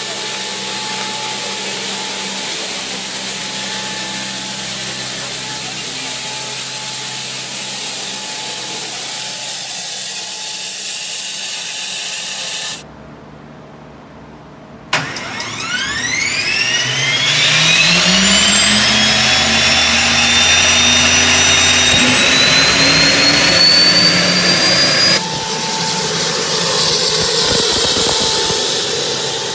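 A small gas turbine engine starting: a click, then a whine that climbs steadily in pitch over several seconds and levels off into a loud, high, steady whine. Before it, a steady engine hum with hiss runs and then cuts off.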